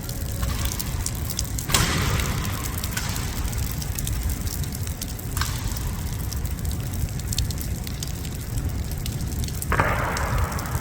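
Heavy downpour: steady rain with many sharp drop hits close to the microphone over a low rush, swelling louder briefly about two seconds in and again near the end.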